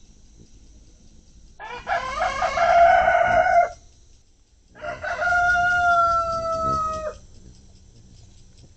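Rooster crowing twice, each crow about two seconds long with a short gap between, the second ending on a held, slightly falling note that cuts off.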